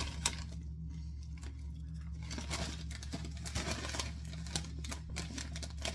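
Crisp packet crinkling and rustling in irregular sharp crackles as a hand rummages deep inside it for a crisp, over a steady low hum.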